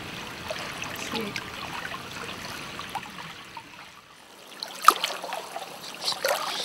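Shallow water trickling and lapping, fading about four seconds in, followed by a few sharp splashes near the end.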